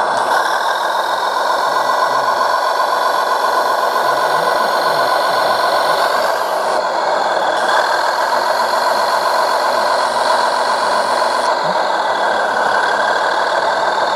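Simulated truck diesel engine sound from an RC model truck's sound module, running steadily through a small speaker.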